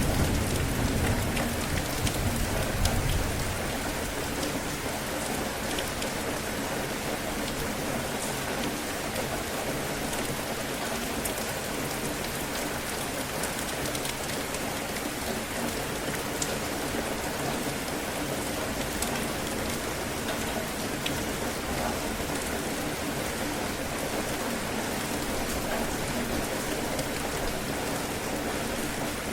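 Steady heavy rain pattering, with the tail of a low thunder rumble dying away over the first few seconds.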